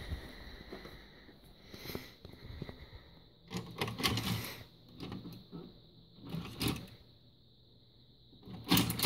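A VHS cassette is handled and slid into a video recorder's front loading slot, and the loading mechanism takes it in. The sound is a series of plastic and mechanical clunks and rattles, busiest a few seconds in, with a sharp loud clunk near the end.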